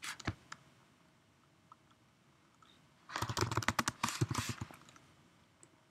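Computer keyboard typing: a few keystrokes right at the start, then a quick run of keystrokes about three seconds in, lasting about a second and a half.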